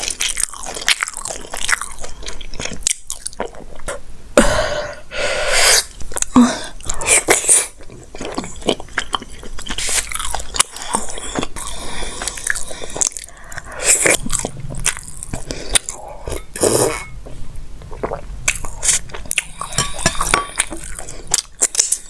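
Close-miked eating: a person biting and chewing, with many irregular wet mouth clicks and smacks. The food includes soft, syrup-soaked rasgulla.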